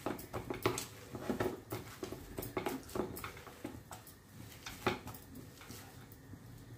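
Hands kneading a wet, sticky mix of chopped colocasia leaves and gram-flour dough in a ceramic bowl: soft, irregular squelches and pats, with a few sharper clicks against the bowl.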